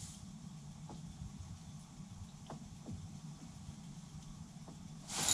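A faint, steady low hum with a few soft clicks, and a louder burst of noise rising just before the end.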